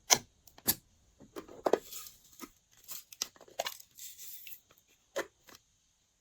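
Glossy slime being squeezed and mixed by hand: a string of sharp pops and short sticky crackles with quiet gaps between them.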